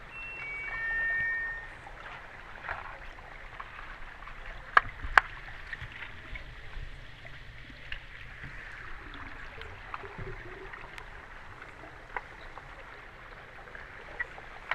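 Underwater sound of a pool during an underwater hockey game: a steady hiss with sharp clicks and knocks of sticks and the puck against the tiled pool bottom, the loudest two close together about five seconds in. Near the start, a short run of tones steps down in pitch.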